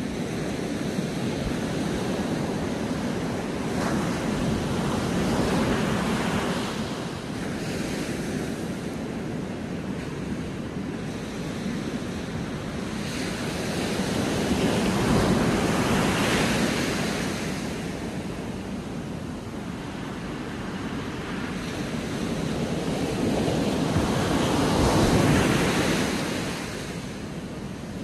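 Sea surf breaking onto a sandy beach and low rocks, the wash of noise swelling and ebbing three times, about ten seconds apart, as each set of waves comes in.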